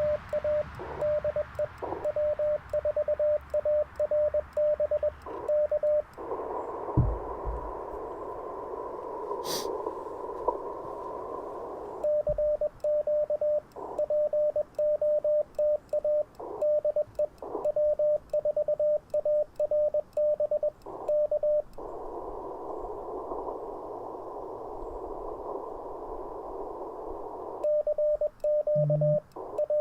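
Morse code keyed from a paddle on an Icom IC-705 transceiver, heard as its sidetone: a single steady beep keyed rapidly on and off. Sending stops twice for about six seconds each, when the receiver's narrow-filtered band hiss takes over as it listens for a reply, and the sending starts again near the end.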